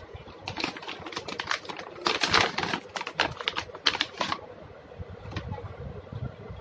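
Crinkling and rustling of a plastic pouch of slime supplies being handled, loudest about two seconds in and stopping after about four seconds.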